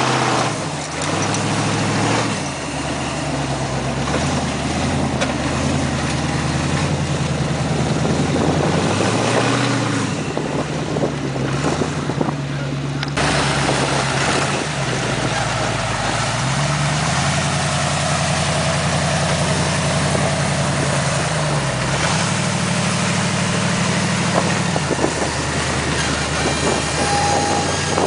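Rock bouncer buggy's engine running and revving up and down with the throttle as it crawls over boulders; the sound changes abruptly about halfway through.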